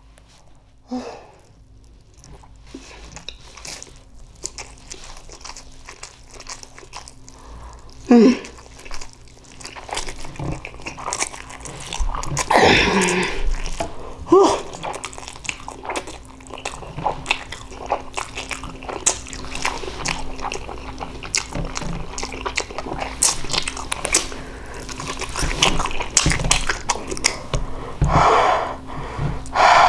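Wet chewing and mouth smacking of ramen noodles, a steady run of small clicks and smacks. A few brief vocal sounds break in; the loudest is about eight seconds in.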